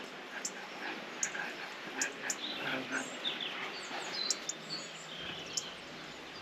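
Small songbirds chirping, many short high notes scattered irregularly over faint outdoor background hiss.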